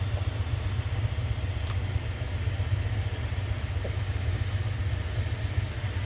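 Steady low roar of shop coolers running full blast.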